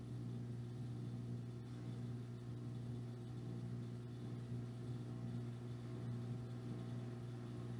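Room tone: a steady low hum with faint higher overtones, and a few faint soft ticks.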